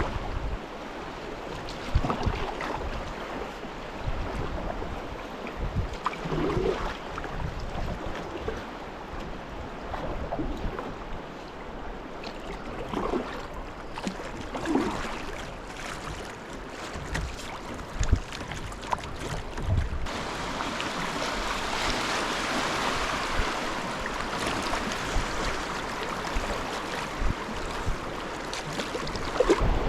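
River water rushing and lapping around a kayak, with wind on the microphone and scattered dull knocks against the hull. The water noise grows louder and fuller about two-thirds of the way through.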